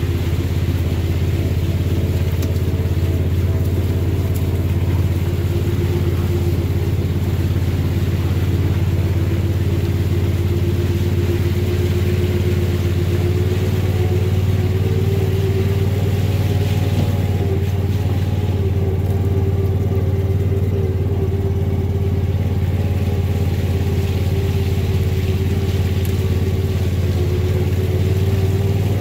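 Engine of a small off-road farm vehicle running steadily while riding, its pitch wavering only slightly with no sharp revving.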